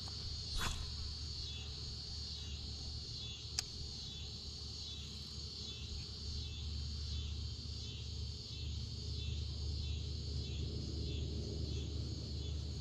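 Chorus of evening insects trilling in a steady pulsing rhythm, about two pulses a second, over a low steady hum. A couple of faint sharp clicks, one near the start and one a few seconds in.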